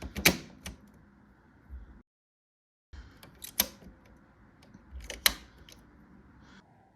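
Sharp plastic clicks and handling noise from hands working on an ink-tank printer. Three loud clicks stand out, with lighter taps and rustling between them. The sound cuts out completely for about a second in the middle.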